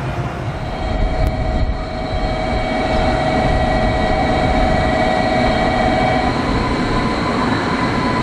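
JR Kyushu 783 series limited express electric train pulling in and braking to a stop, its rumble joined by a steady high whine that dies away after about six seconds as the train comes to rest.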